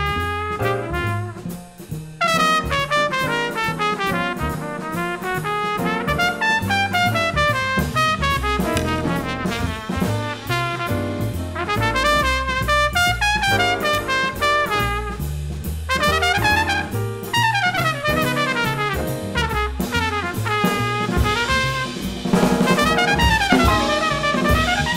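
Trumpet playing quick jazz runs of notes that climb and fall, with a band and drums accompanying underneath.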